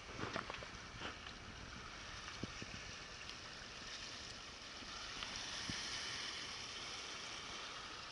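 Steady hiss of open-sea water washing along a sailing catamaran's hulls in light air, swelling gently around the middle. There are a few light ticks in the first second or so.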